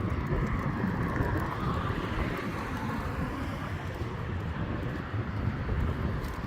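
Steady outdoor vehicle rumble with a broad hiss that swells over the first few seconds and then fades, like a vehicle passing.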